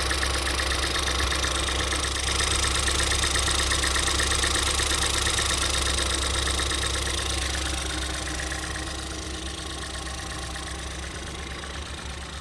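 2014 Ford Escape's 1.6-litre EcoBoost four-cylinder idling steadily with a fast light ticking, run with the cooling system open to burp air out after a coolant change. It grows gradually quieter over the second half.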